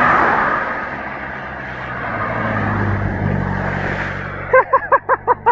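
Cars passing on a flooded road, their tyres hissing through standing water: a loud spray at the start that fades, then another vehicle's low engine hum passing. Near the end a man's voice gives short, rapid repeated sounds.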